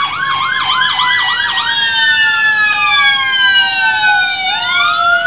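Fire engine sirens: a siren yelping quickly, about three rises and falls a second, changes about two seconds in to a slow falling wail that starts rising again near the end, while a second siren tone falls slowly throughout.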